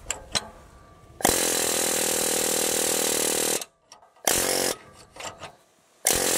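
Ingersoll Rand pneumatic air hammer firing in three bursts, a long one about a second in, a short one around four seconds, and another near the end. It is hammering against an adapter to drive a rust-seized CV axle out of its wheel bearing, and the axle does not budge.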